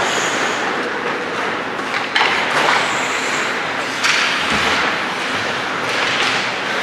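Ice hockey play in an indoor rink: skates scraping the ice with sticks and puck clacking, and two sharp knocks about two and four seconds in.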